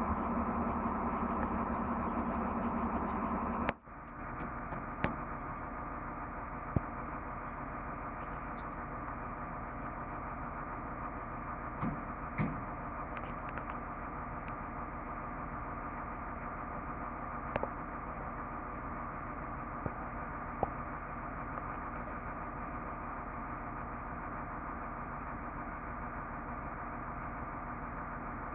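A vehicle engine running steadily, with a few faint clicks now and then. The hum drops abruptly to a slightly lower level about four seconds in.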